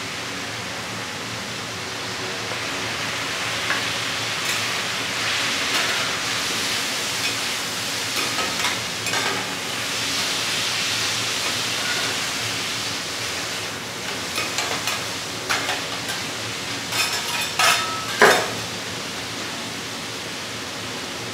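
Scallops and vegetables sizzling on a hot flat steel griddle, the hiss swelling in the middle. In the second half a metal spatula and knife scrape and clack on the griddle in a run of sharp strokes, the loudest one near the end.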